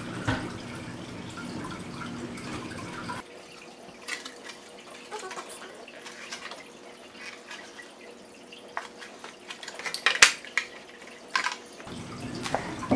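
Thin plastic soap mold being flexed and pressed to work set soap free, giving sparse clicks and crinkles about once a second or two, the loudest about ten seconds in.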